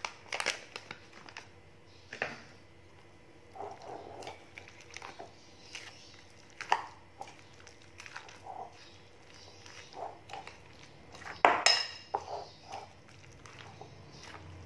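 Metal spoon stirring thick vegetable fritter batter in a glass bowl: irregular clinks and scrapes of the spoon against the glass, the loudest clink about eleven and a half seconds in.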